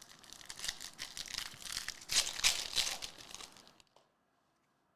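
Foil trading-card pack wrapper being torn open and crinkled, crackling for a few seconds and loudest near the middle before it stops.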